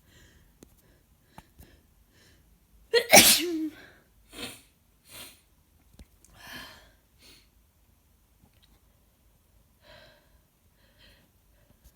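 A person with a head cold sneezes once, loudly, about three seconds in, then sniffles several times with short, fainter sniffs.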